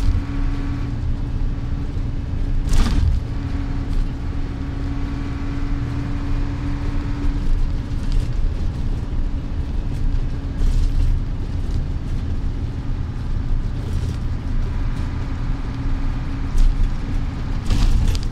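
Steady engine hum and road rumble inside a vehicle's cab cruising on a highway, with a couple of sudden thumps, one about three seconds in and one near the end.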